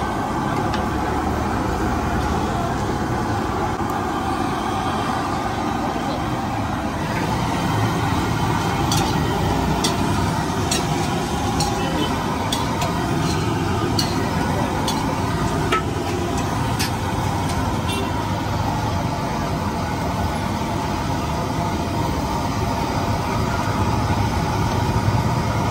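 Steady low rumble of a busy roadside food stall, with voices in the background. In the middle comes a run of sharp metallic clicks as the slotted frying ladle knocks against the kadai of hot oil where puris are deep-frying.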